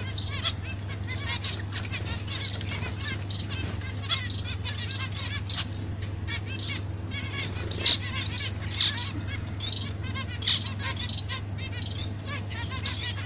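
A flock of zebra finches calling continuously, many short chirps overlapping one another, with a steady low hum underneath.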